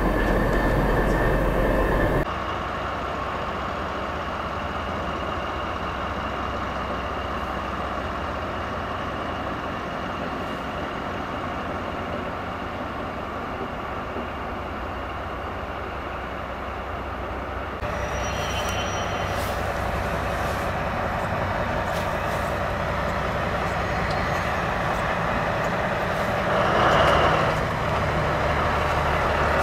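Steady rail noise from trains, changing abruptly about two seconds in and again about halfway through, with a brief louder swell near the end.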